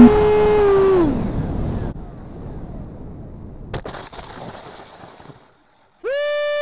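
Music winds down with a falling pitch in the first second. A foam RC jet's belly landing follows, heard through its onboard camera: a rushing scrape over gravel with one sharp knock about midway, fading out as the plane stops. Near the end an electronic warning tone swoops up and holds steady.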